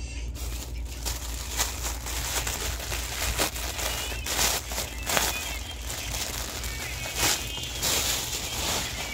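Clear plastic packaging crinkling in irregular bursts as a cloth is pulled out of its plastic bag, over a steady low hum.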